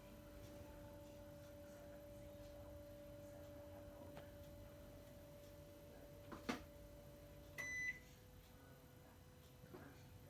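Panasonic CS-KC5HKJ air conditioner humming faintly and steadily. About six and a half seconds in there is a sharp click, then a single short beep as the unit acknowledges a remote command. After the beep the hum drops to a lower, fainter tone.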